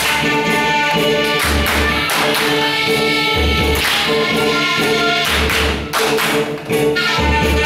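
Slovak folk dance music with a steady beat, overlaid with the dancers' hand claps and foot stamps.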